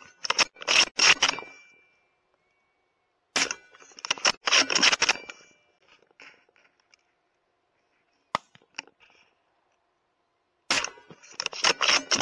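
Suppressed bolt-action .308 Win rifle firing, in three quick groups of sharp cracks and metallic clacks as the bolt is run hard between shots. A single sharp click comes about eight seconds in.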